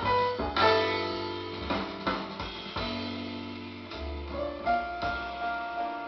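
Jazz piano trio music, piano over bass and drums, playing from a vinyl record on a turntable.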